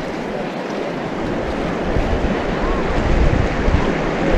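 Whitewater river rushing steadily, a continuous hiss of fast water, with wind buffeting the microphone in low rumbles over the second half.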